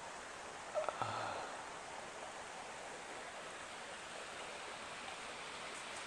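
Steady outdoor background hiss, even and unchanging, with a brief cluster of clicks and a short low sound about a second in.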